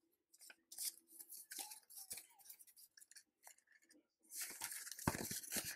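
Paper banknotes and a paper envelope rustling as bills are handled and slid into the envelope: soft scattered rustles and taps, then a denser, louder rustle from about four seconds in.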